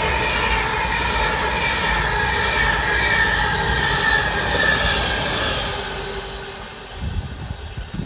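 Class 390 Pendolino electric train passing through, with a low rumble and several whining tones that slide slightly lower as it moves away. The sound fades out over the last few seconds.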